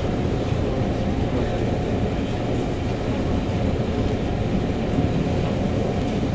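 Steady running noise of a passenger train carriage under way: a constant low rumble of the wheels on the track, heard from inside the car.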